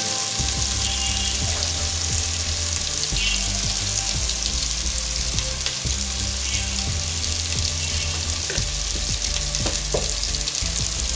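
Spice paste of onion, garlic and ginger sizzling steadily as it fries in oil in a pot, with a few light scrapes of a spatula stirring it late on.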